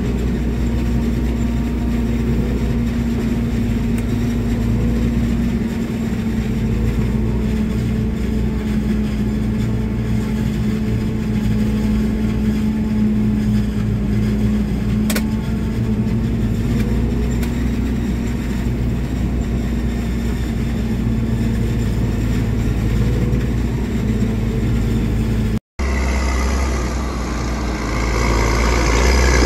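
Tractor engine and a self-propelled forage harvester running steadily together while chopping maize: a constant mechanical drone with a steady hum. About 26 s in it cuts off for an instant and gives way to a tractor towing a silage trailer, its engine louder and deeper.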